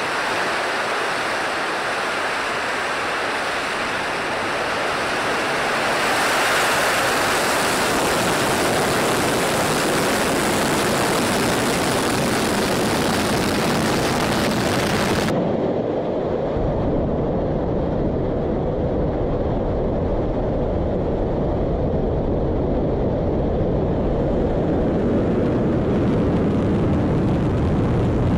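Soyuz-2.1v rocket engine at ignition and liftoff, a loud, steady noise that grows louder about six seconds in. About halfway through the high part cuts out and the sound turns deeper and duller.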